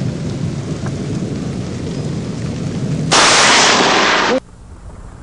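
Thunder rumbling low, then about three seconds in a sudden loud crack of thunder that lasts about a second and cuts off abruptly, leaving a quieter low hum.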